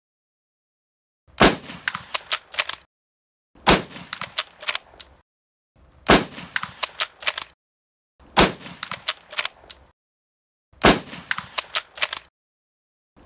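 Lebel Model 1886 bolt-action rifle firing, each loud shot followed by a quick run of sharp metallic clicks as the bolt is worked to chamber the next round. The cycle repeats about every two and a half seconds, five times, with a sixth starting at the very end.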